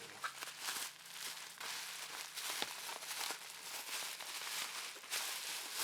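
Packaging being handled and unwrapped: continuous crinkling and rustling with irregular small crackles and rubs.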